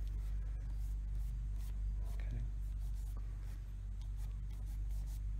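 Faint, irregular rubbing and scratching as shoe polish is worked onto the edge of a rubber heel top lift, over a steady low hum.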